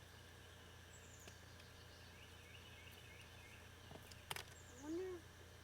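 Quiet outdoor ambience: faint bird chirps, a single sharp click about four seconds in, and a brief voice-like sound near the end.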